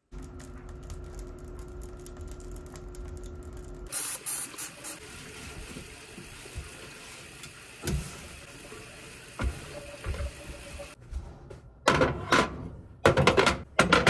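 Metal gas-stove grates clanking in a quick run of loud knocks near the end as they are handled and set down on the stovetop. Before that, a steady hum and then a steady hiss with a few single soft knocks.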